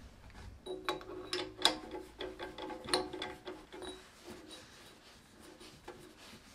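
A quick run of light metal taps and clinks, with the struck parts ringing briefly under them, thinning out to a few softer ticks after about three seconds.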